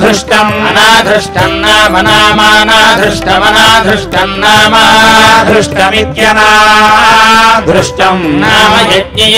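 Ayyappa devotional song: a voice singing long, wavering chant-like phrases over a steady drone.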